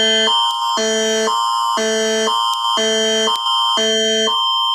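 Alberta Emergency Alert attention signal, the Canadian Alert Ready tone: a loud electronic alarm that switches between two chords about twice a second over a steady high tone. It signals an incoming emergency alert, here a possible tornado alert.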